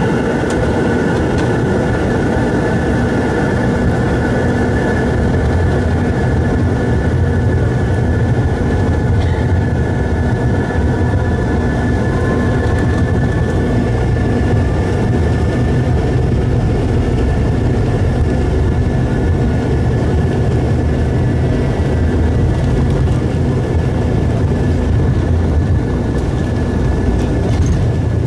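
Jet airliner's engines heard from inside the passenger cabin on the ground ahead of a takeoff: a steady low rumble with a few high engine whines held over it, and a faint rising whine about ten seconds in.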